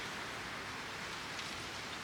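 Campfire burning with a steady hiss and a faint crackle about one and a half seconds in.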